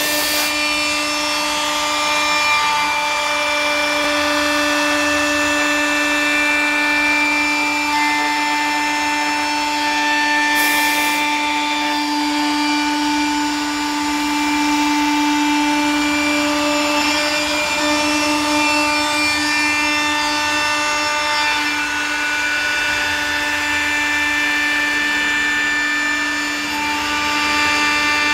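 Houf Robotic CNC router spindle running at speed while its end mill cuts pockets in a black plastic sheet: a steady whine with the rasp of the bit in the plastic.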